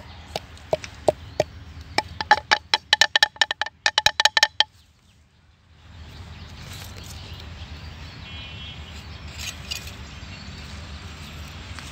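Knife chopping on a board, evenly spaced strokes about three a second, then a fast run of ringing strokes that stops abruptly about four and a half seconds in. Steady outdoor background follows, with a brief bird chirp.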